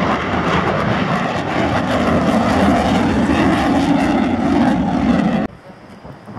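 Loud jet noise from a Panavia Tornado's twin RB199 turbofans as the jet flies past low. The noise cuts off abruptly about five and a half seconds in, leaving a much fainter distant noise.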